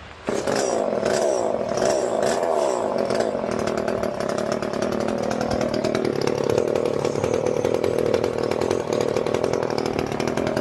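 Echo CS-300 top-handle two-stroke chainsaw engine catching suddenly and running, freshly fitted with a new carburetor and its low, high and idle screws just set. It runs at a higher speed for about six seconds, then settles to a slightly lower steady speed, running smoothly enough that the owner judges the carburetor well tuned.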